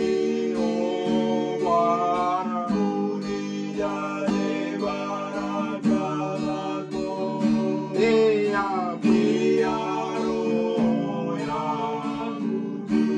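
Acoustic guitar strummed in a steady rhythm while two male voices sing a worship chorus together, in long held, gliding lines.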